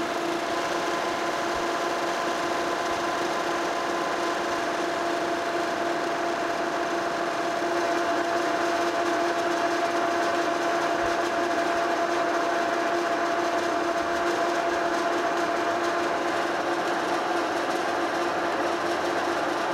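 Monarch 16-inch engine lathe running steadily as its power feed takes a facing cut across a flame-cut steel plate in the three-jaw chuck. The machine hums and whines with a few held tones, and grows a little louder about eight seconds in.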